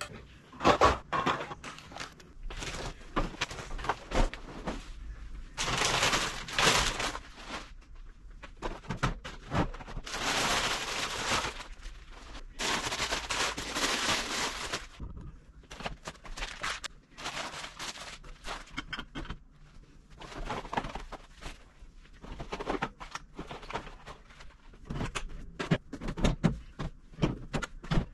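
Food cans and packages being handled while a pantry is emptied: repeated knocks and clinks of cans set down on a granite countertop and lifted off wire shelves, with a few longer stretches of packaging rustling.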